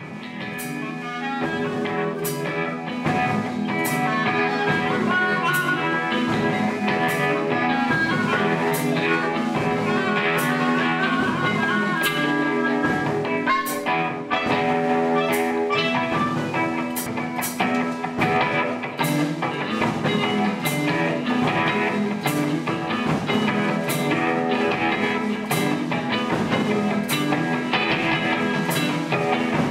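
Background music: a guitar-led instrumental with a steady, unhurried beat.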